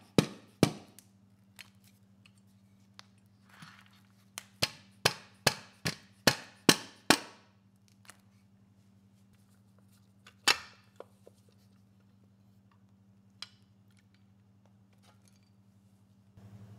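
A run of sharp taps, about two a second, then after a pause a second run of eight and a single louder knock, as the sump cover of a Briggs & Stratton 10 HP engine is tapped loose from the block. A faint steady hum lies underneath.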